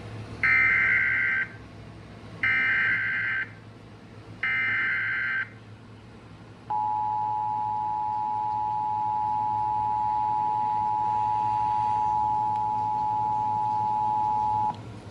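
Emergency Alert System tones from a radio: three one-second bursts of the SAME header's data screech about a second apart, then the steady two-tone attention signal for about eight seconds, cutting off sharply. They herald a broadcast severe thunderstorm warning.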